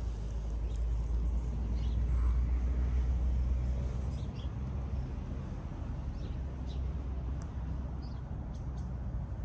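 Outdoor background of a steady low rumble, heaviest a couple of seconds in, with a few faint, short bird chirps scattered over it.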